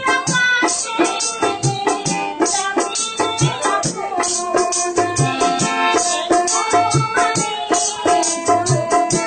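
Music with a steady drum beat and quick rattling percussion under a melody.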